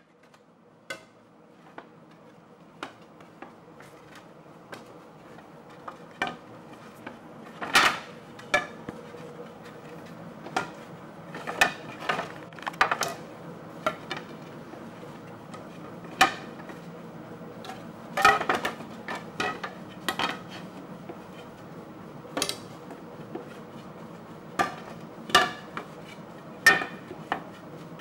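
Irregular wooden knocks and clinks of a cooper handling barrel staves and setting them up inside an iron hoop, over a steady low hum. The sound fades in at the start.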